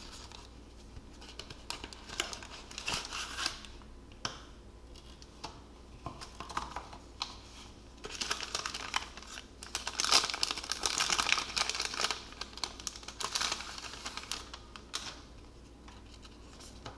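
Cardboard box and clear plastic sleeve of a phone case being opened and handled: crinkling rustles in several bouts, the longest about eight to twelve seconds in, with light clicks and taps.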